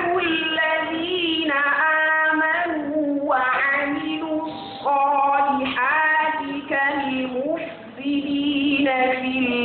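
A single high voice reciting the Qur'an in melodic tajwid style. It holds long, ornamented notes, with short breaths between phrases about 3, 5 and 8 seconds in.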